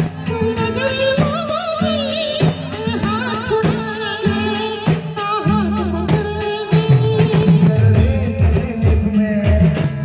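Live Indian band playing a Bollywood-style song through loudspeakers: a wavering lead melody over a steady beat from large bass drums and other percussion.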